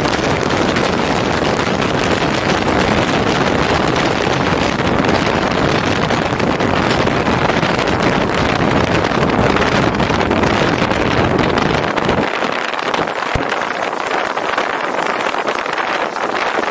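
Wind rushing over the microphone of a camera mounted on a moving motorcycle, a dense steady rush of noise; the deep buffeting drops away about twelve seconds in.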